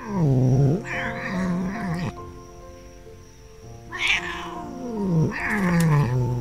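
A 16-year-old silver tabby cat yowling open-mouthed as a hand strokes her head, four long calls in two pairs, each sliding down in pitch. These are the angry complaints of an old cat with a temper at being petted.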